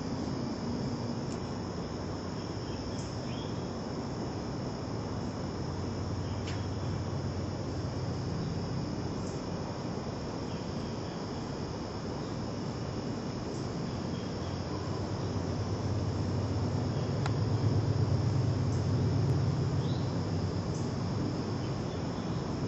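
A steady, high-pitched chorus of crickets over a background hiss, with a few faint short chirps. A low rumble swells in the last third and then eases.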